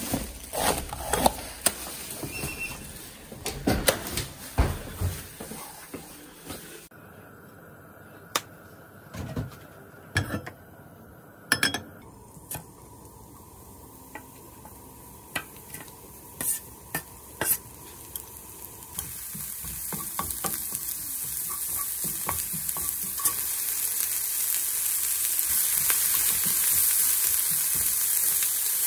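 A few sharp clicks and knocks, then a wooden chopping board knocking against a frying pan as chopped vegetables are scraped in. From about two-thirds through, diced vegetables sizzle in hot oil, growing steadily louder as a wooden spatula stirs them.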